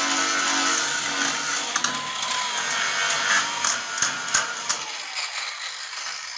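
A small motor whirring steadily, with a few sharp clicks a few seconds in, fading out near the end.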